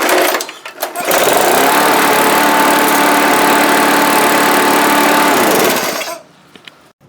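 Tecumseh engine of a Craftsman lawn mower starting about a second in after a short burst of cranking. It runs steadily for about five seconds, now that its carburetor main jet has been cleaned out, then is shut off and dies away.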